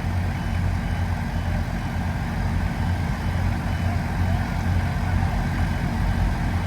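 Steady low rumble of heavy vehicle engines running at a roadway construction site, with no distinct events.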